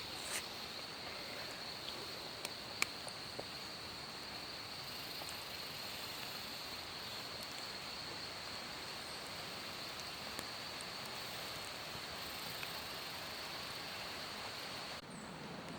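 Tropical forest ambience: a steady, high-pitched insect drone over an even hiss, with a few light clicks and ticks. The drone cuts off abruptly near the end.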